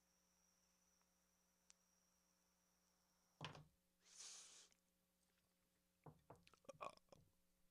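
Near silence with faint handling sounds: a soft knock, a brief hiss just after it, then a quick run of small clicks near the end.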